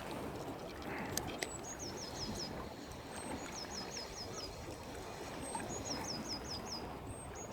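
A small songbird sings the same short phrase four times, about every two seconds: one high note and then a quick run of about five falling notes. Under it runs a steady rush of river water, with a couple of faint clicks about a second in.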